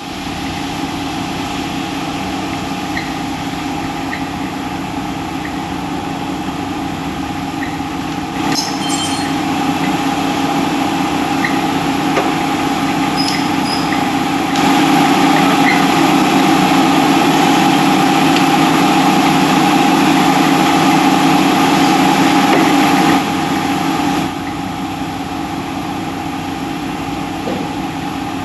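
CNC vertical machining centre running, a steady machine hum with a few constant tones. It grows louder for a stretch in the middle, then drops back to the earlier level.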